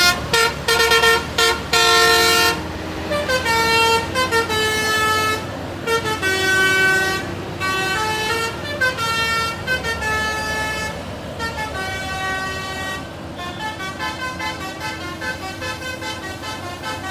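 Indonesian bus's basuri musical horn playing a tune, the 'telolet' horn. It opens with quick stuttering blasts, moves to longer held notes at changing pitches, and ends with rapid repeated short notes.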